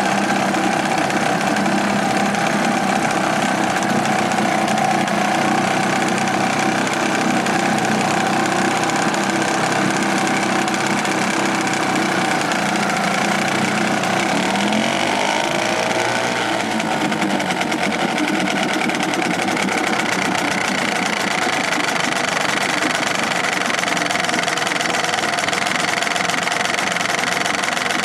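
British Seagull two-stroke outboard motor running steadily in a test tank. Its note dips and comes back up about halfway through.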